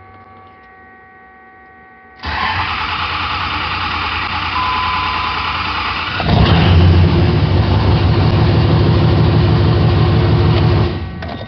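A 5.9 ISB Cummins common-rail diesel cranks on its starter for about four seconds, then fires and runs until it is shut off near the end. It starts because cylinder 2's injector is blocked off at the rail: that injector has excess return flow through a worn ball and seat, which bleeds off rail pressure and causes the no-start.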